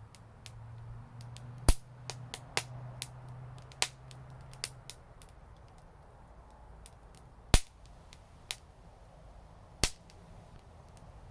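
Wood fire crackling with sharp, irregular pops, a few of them much louder than the rest. A low steady hum runs underneath for the first half.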